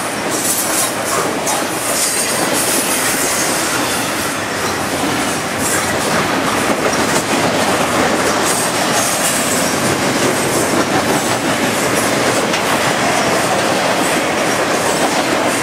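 Double-stack intermodal train's loaded well cars rolling past close by: a loud, steady rumble and rattle of steel wheels on the rails, growing a little louder partway through.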